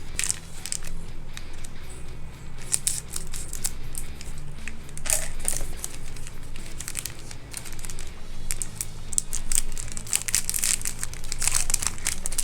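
Plastic wrapper of a small Britannia Bourbon biscuit pack crinkling and crackling in a run of sharp, irregular rustles as it is handled and opened.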